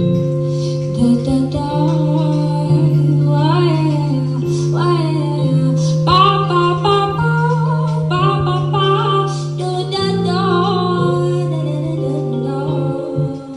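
Song intro: a woman's wordless vocal runs and ad-libs over long, held accompaniment chords.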